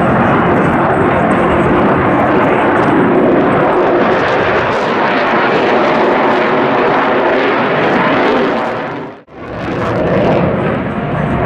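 F-22 Raptor fighter jet's twin Pratt & Whitney F119 turbofans, a loud, steady jet roar as the aircraft flies its display overhead. The roar drops away abruptly about nine seconds in and comes back a moment later.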